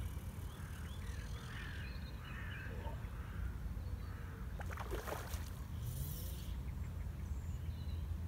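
Outdoor ambience with steady low wind noise on the microphone, faint chirping bird calls in the first few seconds, and a short rattling burst about five seconds in.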